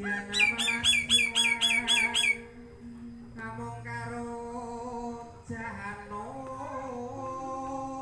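Black-winged myna (jalak putih) giving a quick run of about nine loud repeated calls, roughly four a second, that stops about two and a half seconds in. Music with singing from a neighbour's sound system plays underneath and carries on after the calls.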